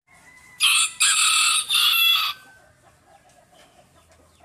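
Rooster crowing once, starting about half a second in and lasting under two seconds, broken briefly near its start.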